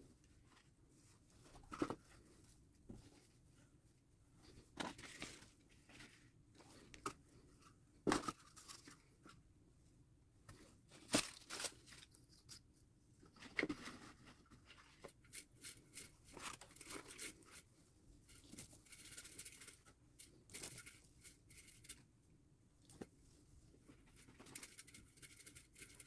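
Faint scattered clicks, taps and rustling as items are set into a mouse tank's bedding, with paper rustling and tearing, busier in the second half.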